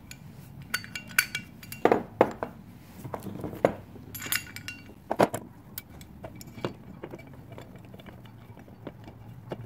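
Loose steel caster hardware and a socket ratchet clinking and knocking on the workbench as they are handled, in irregular clinks with a few louder knocks about two seconds and five seconds in.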